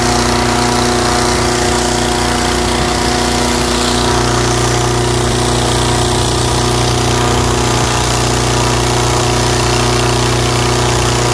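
Petrol-engine balloon inflator fan running steadily, blowing cold air into a hot-air balloon envelope during cold inflation.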